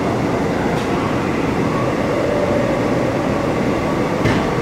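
Seoul Metro Line 9 subway train running, heard from inside the carriage: a steady rumble of wheels on rail, with two brief clicks, about a second in and near the end.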